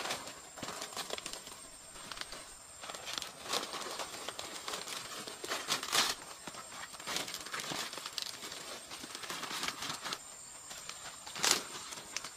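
Large green leaves rustling and crinkling as a leaf-wrapped bundle of soil is handled and emptied onto the ground, with irregular crackles and soil spilling out. The rustling is loudest about halfway through and again near the end.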